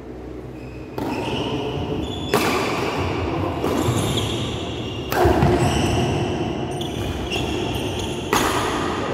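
Badminton rally in a reverberant sports hall: a few sharp racket strikes on the shuttlecock, the loudest about one, two and a half, five and eight and a half seconds in, each echoing on in the hall.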